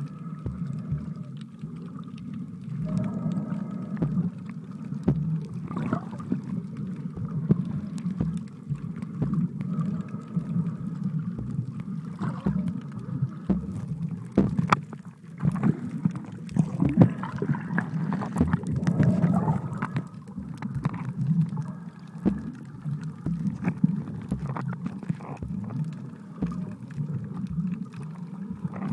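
Sea water heard from underwater: a steady low, muffled rumble with scattered clicks and faint wavering tones.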